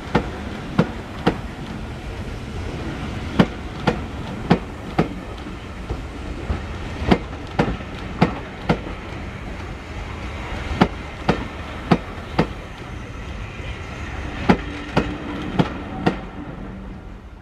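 Railway passenger carriages rolling slowly past over a rail joint: a low rumble with sharp wheel clicks, mostly in twos about half a second apart, one click per axle of each bogie. The clicks stop near the end as the last carriage goes by.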